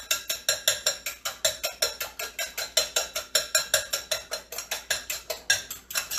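Raw eggs being beaten by hand in a bowl, without a whisk: the utensil clicks against the bowl in a fast, even rhythm of about seven strokes a second.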